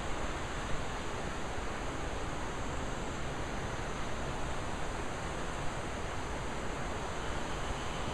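Steady rushing of a mountain river: an even, unbroken hiss of water.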